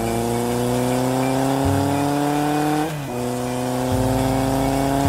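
Motorcycle engine sound effect revving up twice, each rev a slowly rising drone of about three seconds, with a short break about three seconds in.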